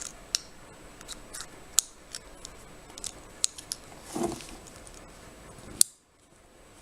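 Light metallic clicks and clinks of small lock picks from a lever picking set being handled and sorted, with one sharper click near the end.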